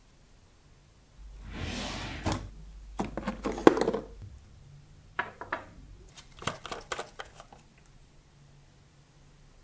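A sanding sponge rubbing on a small metal model car body for about a second, then scattered light clicks and knocks as small bottles are handled and a glass bottle's screw cap is opened.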